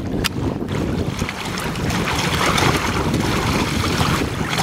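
Wind buffeting the microphone over small waves washing in shallow water, with a single short click near the start.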